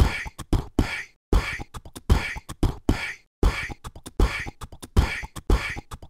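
Percussive outro beat in a steady rhythm: deep low kick thumps alternating with sharp, hissing snare-like hits, sounding beatbox-like.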